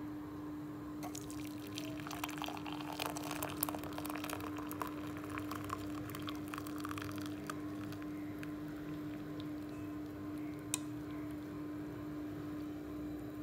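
Hot milky tea poured from a pan through a stainless steel mesh strainer into a mug, splashing and trickling for several seconds, then thinning to drips. A single sharp tap comes near the end, over a steady hum.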